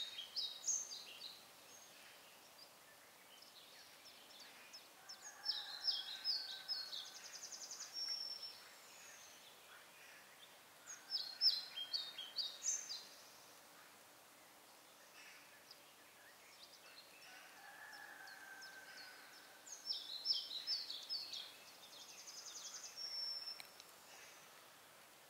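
A songbird singing short phrases of quick, high, bright notes, four times, about every five to six seconds, a few of them ending in a brief buzzy note. Faint steady outdoor hiss between the phrases.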